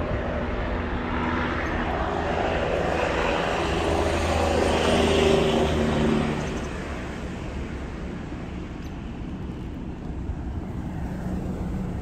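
Engine noise of a passing motor vehicle or low aircraft, swelling to a peak about five seconds in and then fading away.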